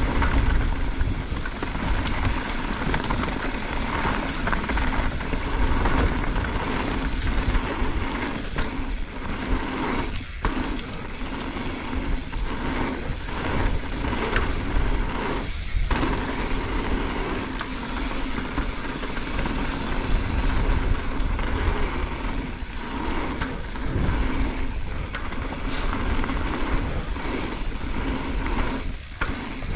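Mountain bike descending a dirt forest trail at speed: steady wind rushing over the camera microphone with tyre and rattle noise from the bike over the bumps. There are a few brief drops in the noise, about ten, sixteen and twenty-nine seconds in.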